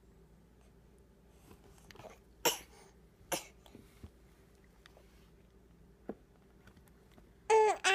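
Baby coughing twice in short bursts, about two and a half and three and a half seconds in: an exaggerated, theatrical "I'm dying" cough while being spoon-fed. Near the end comes a brief, louder high-pitched baby squeal.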